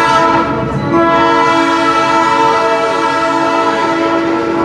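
Diesel locomotive air horn on an EMD SW8 switcher, sounding several notes together: a short blast, then a long held blast from about a second in.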